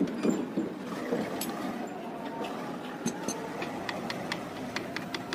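Light metallic clicks and ticks from hand work on a motorcycle's right footrest and rear brake pedal mounting as the disc brake pedal assembly is fitted. The clicks are irregular and come more often in the second half.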